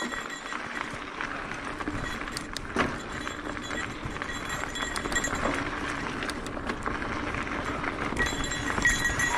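Mountain bike riding over a dirt singletrack trail: steady tyre and ride noise with scattered small clicks and rattles, and a sharper knock about three seconds in.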